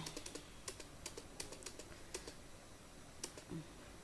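Faint keystrokes on a computer keyboard: a quick run of taps in the first couple of seconds, then only one or two more.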